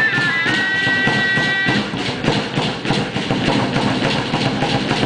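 Traditional Mexican chirimía playing a few high held notes that stop about two seconds in, over a fast, steady beat on teponaxtle and drum.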